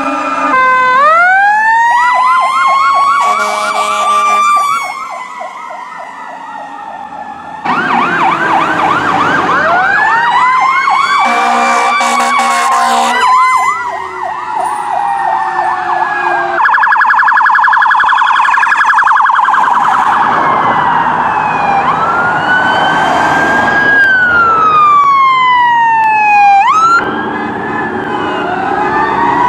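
Fire engine sirens passing close by: a wailing siren that winds up and falls slowly, fast electronic yelping, and blasts of an air horn, with sudden changes as one truck's sirens give way to another's.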